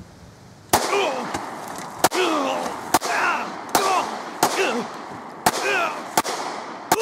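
Smith & Wesson Shield compact semi-automatic pistol fired in a quick string of eight shots, a little under a second apart, with faint clangs from the steel targets between some of them.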